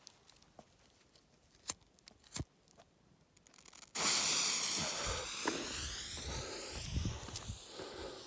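A small green cipolla firework's pre-burner catching: after a few faint clicks, a loud hiss starts suddenly about four seconds in and slowly fades as the composition burns.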